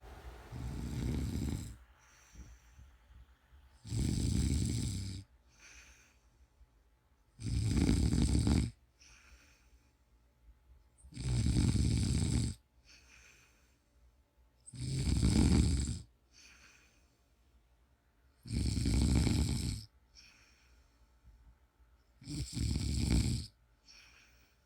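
A woman snoring in a slow, regular rhythm: seven loud snores about three and a half seconds apart, each lasting a little over a second, with faint breaths in between.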